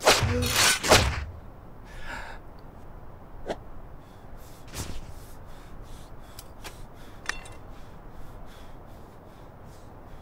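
A snow groomer's steel winch cable whipping through the air: three loud swishes over about the first second, then quiet with faint scattered clicks and rustles.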